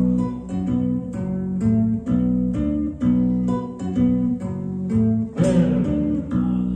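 Chapman Stick played by tapping: a bass line with chords and melody notes above it, about two notes a second. A louder, rougher accent comes about five seconds in.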